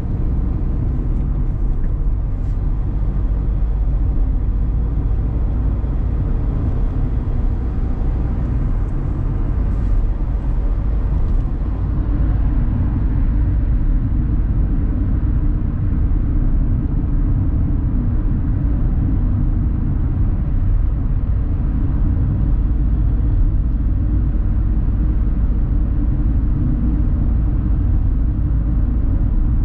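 Steady low rumble of engine and road noise inside the cabin of a Toyota Aygo with its 1.0-litre three-cylinder engine, as the car accelerates and then cruises at about 75 km/h.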